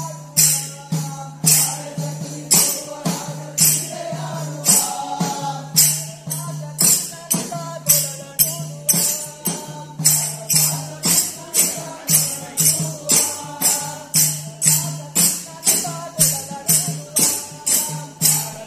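Kunitha bhajane music: a group singing a devotional bhajan while small hand cymbals (taala) clash in time, over a steady low drone. The cymbal beat starts at about two strikes a second and quickens toward the end.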